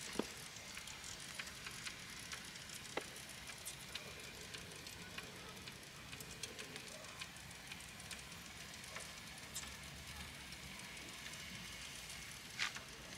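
Faint, steady sizzling from a drum smoker with beef short ribs cooking on its grate, dotted with small crackles and pops and a sharper pop near the end.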